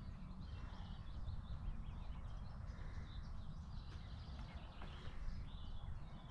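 Birds chirping and singing, many short calls throughout, over a steady low rumble.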